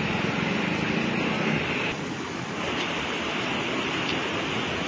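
Fast, turbulent floodwater rushing through a concrete channel in a steady wash of noise, briefly a little softer about two seconds in.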